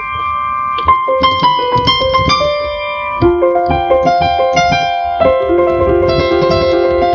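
An Alesis digital keyboard played with a piano sound: quick melody notes over held chords. The chord changes about three seconds in and again about five seconds in.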